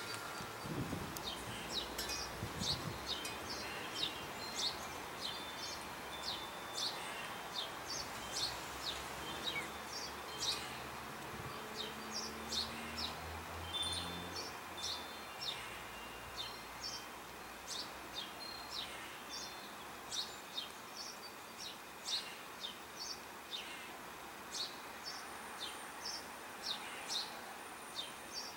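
Small songbirds chirping in the background: short high chirps, one or two a second, over a steady outdoor hiss, with a thin high whistle held for a couple of seconds near the end.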